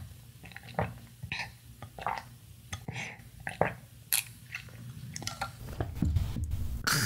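A child drinking the milk left in a cereal bowl straight from the bowl: close-up swallows, slurps and mouth clicks, with some chewing of soggy cereal, and a louder stretch near the end.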